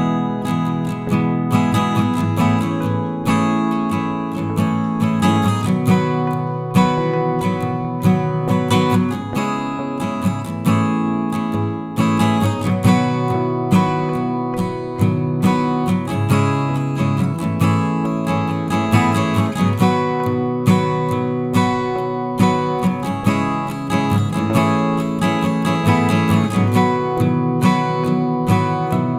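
Background music: strummed acoustic guitar.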